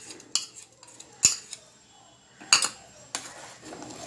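Ground almond paste being scraped from a container into a stainless steel saucepan of milk: about five sharp metal clinks against the pan, the loudest about a second in and near the middle, with quiet gaps between.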